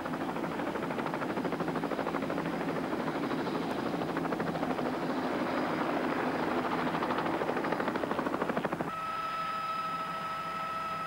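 Light helicopter hovering close by, its two-bladed main rotor chopping rapidly and evenly over the engine noise. About nine seconds in the sound changes abruptly to a steady engine whine with several held tones, as heard from inside the cabin.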